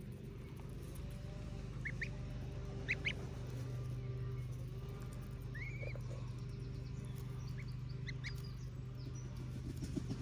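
Goslings peeping: scattered short, high calls, a few together about two and three seconds in, one longer call near six seconds, and a quick run of them around eight seconds. A steady low hum runs beneath.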